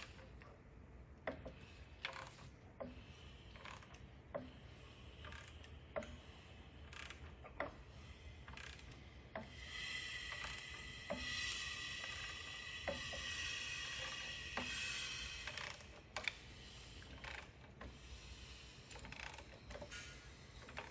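Timing chain drive of a Ford 5.4L three-valve V8 turned slowly by hand with a bar on the crankshaft: faint mechanical clicks from the chains, sprockets and guides, roughly one a second, with a louder rubbing stretch about halfway through. A broken guide fragment is being carried around under the chain, lifting it and slackening it toward jumping a tooth.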